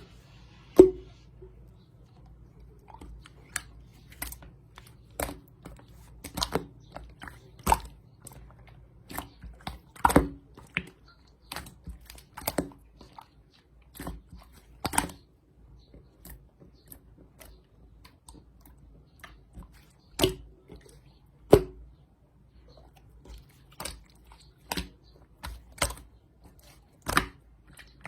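Honey-butter jam slime being squished and pressed by hand, giving irregular sticky clicks and pops, about one or two a second, with a quieter stretch in the middle.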